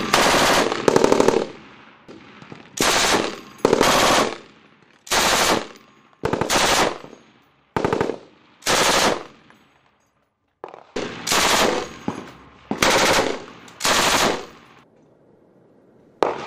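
M240 7.62 mm machine gun firing about a dozen short bursts of automatic fire, each under a second long, with pauses of a second or two between them. Each burst trails off in an echo.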